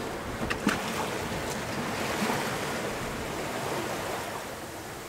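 Choppy sea rushing and splashing along the hull of a small sailboat under way, with wind, swelling about two seconds in and easing off toward the end. A couple of sharp knocks about half a second in.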